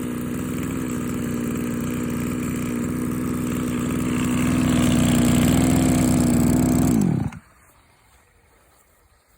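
Komatsu Zenoah BC2211EZ brush cutter's small two-stroke engine running at a steady speed. It grows louder about four seconds in, then is shut off about seven seconds in, its pitch dropping quickly as it dies.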